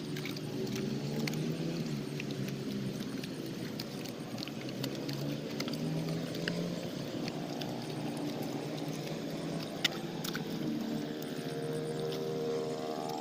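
A motor engine running, its pitch slowly rising and falling, with scattered sharp clicks over it.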